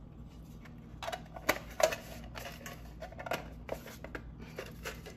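A small old metal tin being handled and its lid put back on: a string of light clicks and taps, the two sharpest about a second and a half and just under two seconds in.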